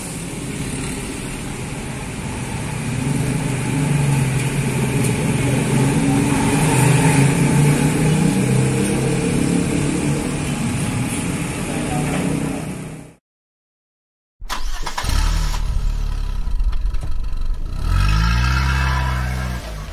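Diesel engine of a coach bus running and pulling away, its note growing louder about three seconds in. It cuts off suddenly near the middle, and after about a second of silence a loud, low intro sound effect plays, swelling in pitch and falling away near the end.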